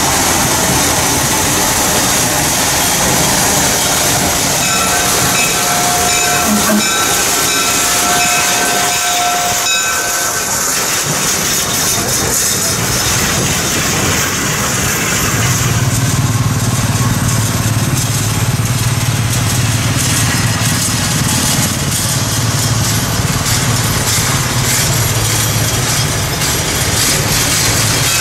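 Steam locomotive and its open passenger cars running past, wheels clicking over the rail joints. A steam whistle sounds a few seconds in, and a low rumble swells in the second half as the train rolls by.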